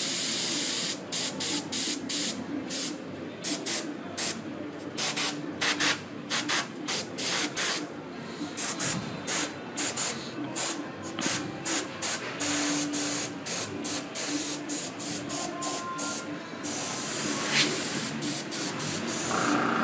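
Airbrush blowing compressed air in many short bursts of hiss as the trigger is pressed and let go over and over, then a longer unbroken hiss near the end. It runs off the compressor at a full, unregulated 60 psi, with plastic soda bottles as the air tank.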